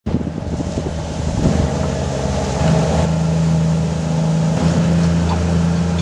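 Komatsu D155W amphibious bulldozer's six-cylinder diesel engine running with a steady drone, with irregular clattering over the first second or two.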